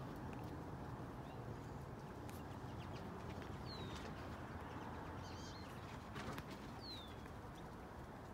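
Quiet outdoor ambience: a steady low background rumble, with two short, high, falling bird chirps, about four and seven seconds in.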